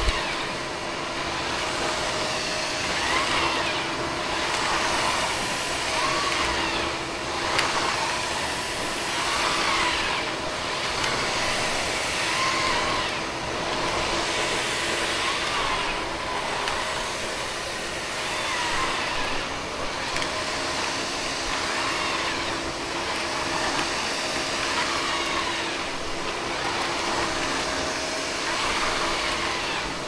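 Roborock Flexi Pro cordless wet-dry vacuum mop running steadily while wet-mopping a floor, a continuous motor hum that swells and dips about every two to three seconds as the head is pushed back and forth.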